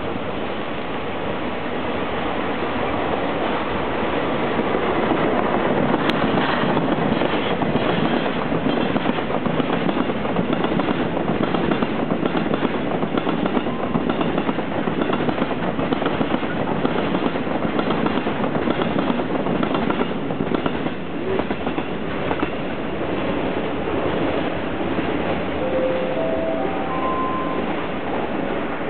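A DD51 diesel locomotive hauling a freight train of Taki tank wagons passes close by. The rumble builds as the locomotive comes up, then the tank cars roll past in a long run of rhythmic wheel clacks over the rail joints, which eases off as the end of the train draws away.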